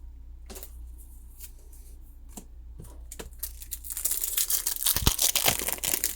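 A few light clicks and taps, then about four seconds in a loud, crinkly tearing as a foil Pokémon booster pack wrapper is ripped open.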